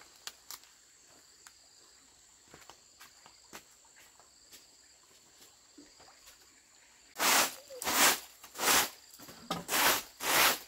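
A faint, steady insect trill with a few soft ticks. About two-thirds of the way in, a hand broom starts sweeping a packed-earth floor in loud, brisk strokes, roughly one every half second to second.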